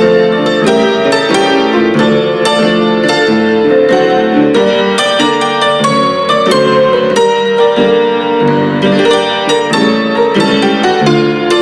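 Piano-led honky-tonk music playing through a pair of small bookshelf speakers driven by a Lo-D HMA-4500 MOSFET power amplifier, with a quick, even run of struck piano notes.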